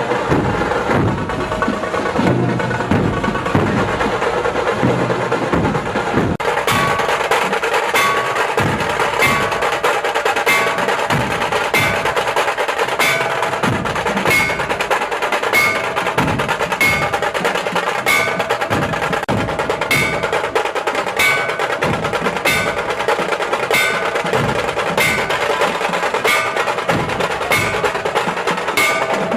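Music with percussion: struck wooden and bell-like accents over a steady beat. The track changes abruptly about six seconds in, and then runs at about one bright accent a second.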